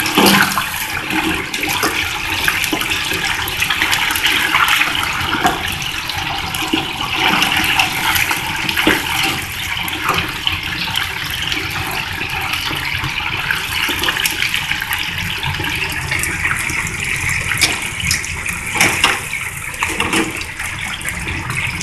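Oil in a commercial deep fryer bubbling and crackling steadily around a whole Cornish game hen: a dense, even sizzle with many small pops. The hen is already cooked and is being fried only to brown and crisp the skin.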